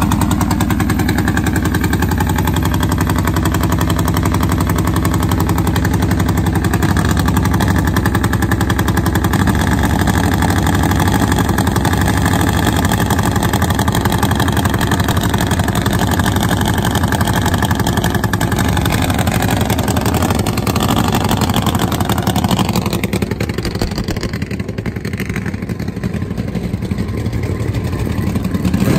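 Nitromethane-burning Harley-Davidson V-twin drag bike engine idling loudly and steadily, with rapid, dense firing pulses. In the last several seconds the engine sound thins and drops a little before picking up again.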